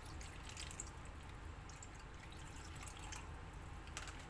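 Coconut milk poured from a plastic bag into a frying pan of fish in spice paste: a faint liquid trickle with scattered small crackles, and one sharper click near the end.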